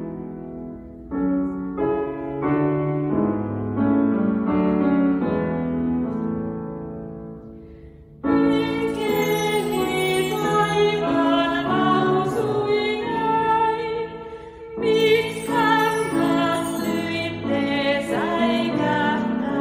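Grand piano playing a slow introduction. About eight seconds in, women's voices start singing with the piano, and a set of bar chimes is swept twice, shimmering above the song.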